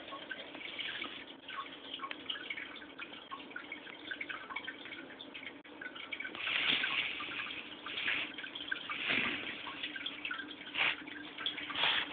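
Aquarium water trickling and splashing, with irregular drips and splashes that swell now and then, over a steady low hum.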